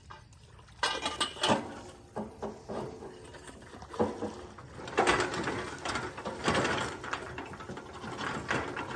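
Steel pipe used as a pry-bar against a boat lift's metal frame, grinding and scraping metal on metal in repeated irregular bursts as the lift is levered forward.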